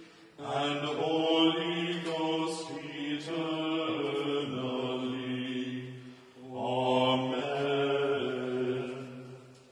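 Two men's voices singing an unaccompanied hymn, holding long notes. The phrase breaks off about six seconds in and a final held note follows, fading out near the end: the close of the office hymn.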